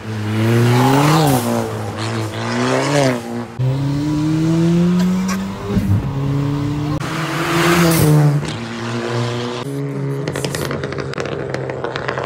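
Ford Fiesta ST mk7's 1.6 turbocharged four-cylinder, breathing through a Milltek full exhaust, accelerating hard. The revs climb in several pulls, each cut off by a sudden drop at a gear change, and the engine runs steadier near the end.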